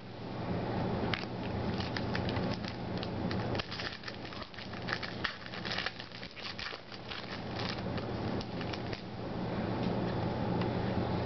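Trading card pack wrapper crinkling and crackling in quick, irregular bursts as it is torn open and the cards handled, over a steady low room hum.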